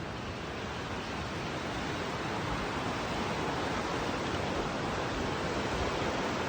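Steady rushing of creek water, a continuous even hiss that grows gradually louder.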